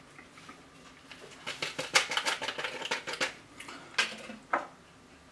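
A run of quick dry ticks and rustling as a small packet of grated lemon peel is shaken and tapped out over a ceramic mixing bowl, then two separate sharp clicks.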